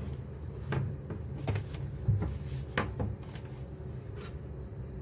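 Hands handling the stripped ends of a two-wire electrical cable on a wooden workbench: a few scattered light clicks and taps, over a low steady background hum.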